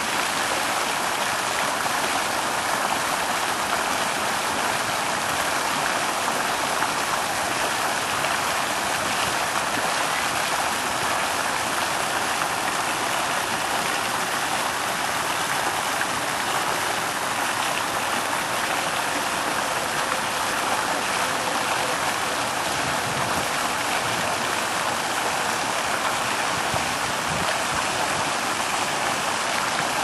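Water falling in a stream from a fountain spout into a pool, a steady splashing rush that does not change.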